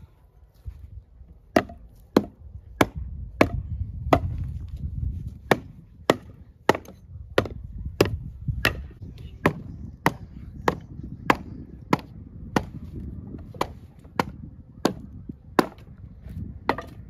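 Axe chopping into a fallen tree trunk: a steady run of about 25 sharp, woody strikes, roughly one every two-thirds of a second, starting about a second and a half in.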